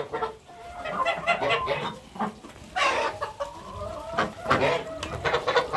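A mixed flock of hens and other poultry clucking and calling while feeding on grain, with a couple of longer drawn-out calls about three seconds in.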